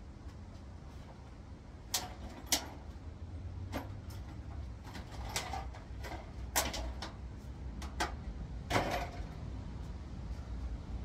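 Irregular clicks and knocks, about eight of them, some with a short ring, over a low steady hum: tools and gearbox parts being handled on a workbench.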